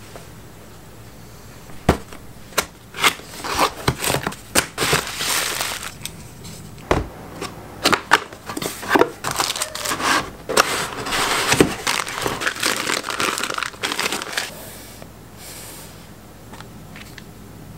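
A cardboard Tamron lens box being handled and opened by hand: scraping and sliding cardboard and crinkling wrapping, broken by sharp clicks and taps. The handling goes quiet for the last few seconds.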